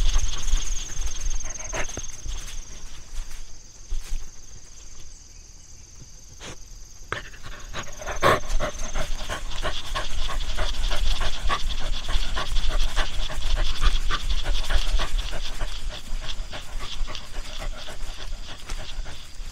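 A dog panting hard and fast. It eases off to a quieter lull about four seconds in and picks up again about seven seconds in.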